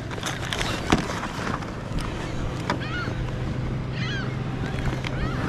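A boat's motor humming steadily under wind and water noise, with a sharp knock about a second in and a few short, high, curving calls in the second half.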